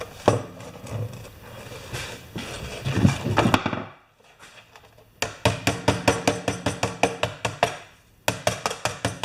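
Tools and metal parts clattering and knocking, then a hand pop-rivet gun clicking in a quick, even series of about four to five sharp clicks a second. The clicking pauses briefly near the end and starts again.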